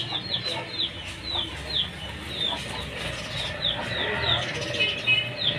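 Chickens clucking in an aviary amid a steady run of short, high, falling bird chirps, several a second.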